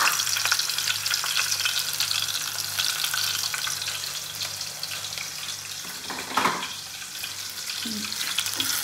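Sliced onion sizzling in hot ghee in an aluminium pan, with potato chips frying in a second pan of oil: a dense, crackling hiss that eases off toward the middle. A single knock of a utensil on the pan comes about six and a half seconds in.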